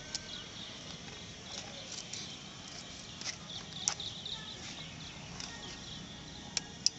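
Small birds chirping on and off throughout, with a few sharp metallic clicks from the handguard's metal clamp and bolt being handled at the handlebar, the loudest about four seconds in and two more near the end.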